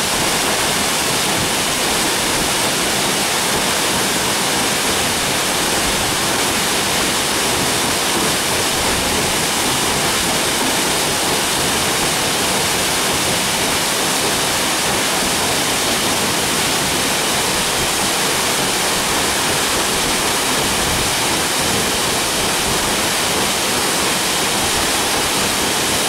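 Waterfall rushing: a steady, loud wash of falling water that does not change.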